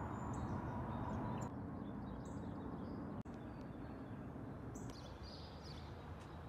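Outdoor ambience: a steady low background hum with short, high bird chirps scattered through it. The background shifts abruptly a couple of times.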